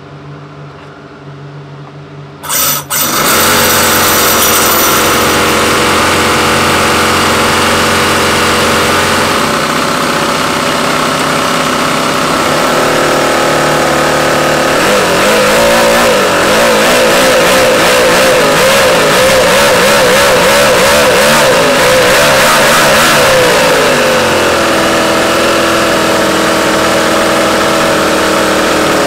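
Toyan FS-V800 model V8 four-stroke engine starting: a quieter hum for the first two seconds or so, then the engine catches suddenly and runs loud and steady. Its pitch wavers up and down for several seconds in the middle before it settles back into an even run.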